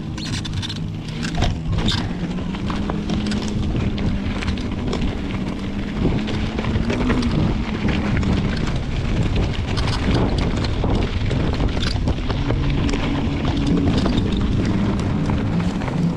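Mountain bike riding down a dirt trail: wind buffeting the microphone over a steady rush of tyre noise, with frequent small clicks and rattles from the bike over rough ground.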